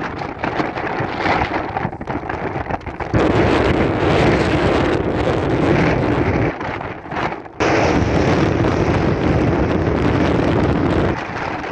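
Storm-force wind gusts buffeting the microphone, loud and noisy with no tone in it. It strengthens about three seconds in, drops off briefly past the middle, then comes back suddenly.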